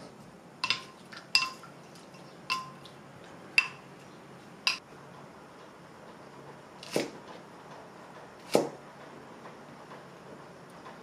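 A wooden spoon knocking five times against a glass bowl while stirring, each knock with a short glassy ring. Then a chef's knife chops twice through a green onion onto a plastic cutting board, about a second and a half apart.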